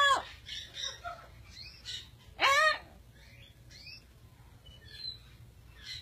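Parrot calling: soft high chirps and whistles, with one loud call that bends in pitch about two and a half seconds in.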